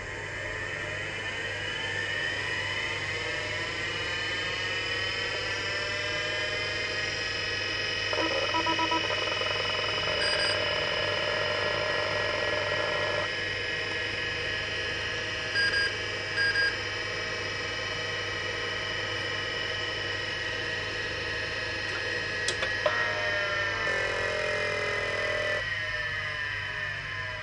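Seagate ST-251 40 MB MFM hard drive spinning up with a whine that rises in pitch and then settles steady. The head mechanism buzzes for a few seconds, then gives a couple of short chirps and a sharp click. Near the end the whine falls in pitch as the drive winds down.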